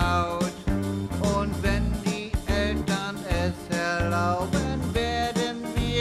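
Instrumental passage of an upbeat country-flavoured band backing track, with a lead instrument carrying the melody over a steady bass beat.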